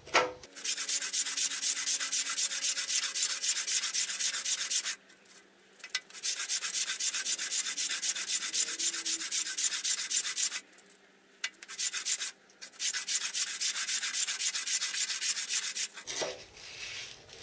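Hand sanding of a metal casting's flat way surface to take off the casting scale, in rapid back-and-forth strokes. There are three long spells of sanding with two short breaks between them.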